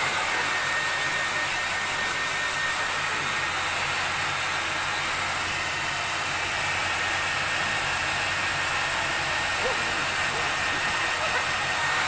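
Hand-held hair dryer blowing steadily, a constant rushing hiss with a faint thin whine.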